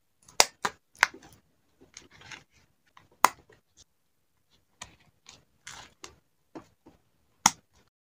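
A handheld single-hole paper punch clicking sharply three times through card, followed by paper and plastic-sleeve rustling and the sharp snaps of a mini ring binder's metal rings being opened and closed, the loudest snap near the end.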